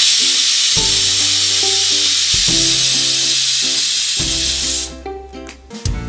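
Pressure cooker whistle: steam jetting out under the weight valve as a loud, steady hiss, a sign that the cooker is at full pressure. The hiss stops sharply about five seconds in.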